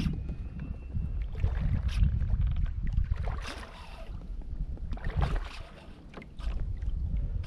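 Water moving around a kayak hull, with a low wind rumble on the microphone and several sharp knocks and splashes as a big redfish pulls the kayak around.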